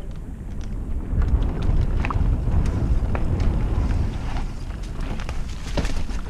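Mountain bike being ridden on a dirt trail: wind rumbling on the microphone and tyre noise, with scattered clicks and rattles from the bike.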